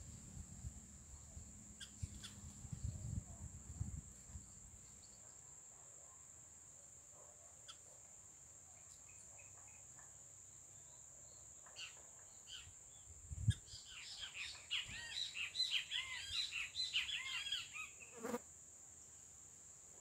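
A steady, high-pitched insect drone runs throughout. About two-thirds of the way in, after a low thump, a songbird gives a rapid run of twittering chirps for about four seconds.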